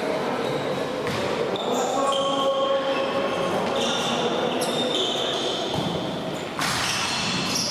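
Tchoukball being played in a sports hall: the ball bounces and thuds, with a sharp burst of noise about six and a half seconds in, over a murmur of voices.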